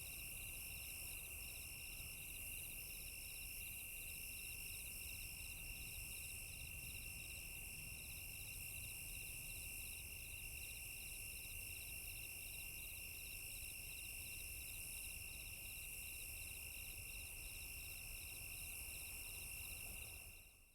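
A chorus of crickets chirping: a steady high drone with rapid pulsed trills layered over it. It fades out near the end.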